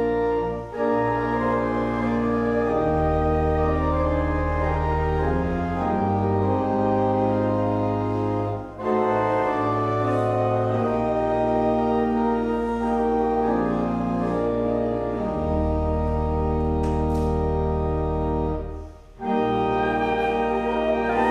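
Church organ playing slow sustained chords over a deep bass line, in phrases broken by three short pauses.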